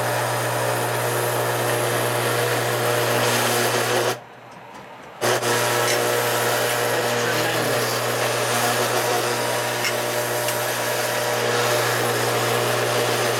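1950s Lionel culvert loader's electric motor and gears running with a steady hum and whir as its crane moves culvert pipes. It cuts off about four seconds in and starts again a second later.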